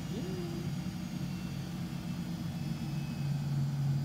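Miele Novotronic W715 front-loading washing machine running a rinse with a duvet in the drum: a steady low motor hum, its note shifting lower and steadier about three seconds in.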